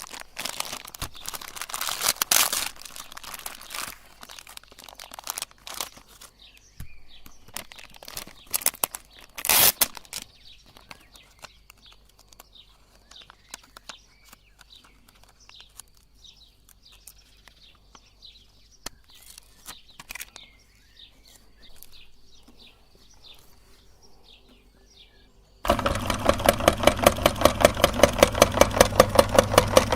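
Rustling, handling clicks and faint chirps, then near the end an electric meat grinder's motor switches on suddenly and runs with a loud hum and a fast, even pulsing.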